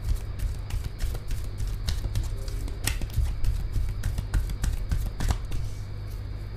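A deck of oracle cards being shuffled by hand: a run of irregular soft clicks and taps as the cards slide and strike against each other. Soft background music plays under it.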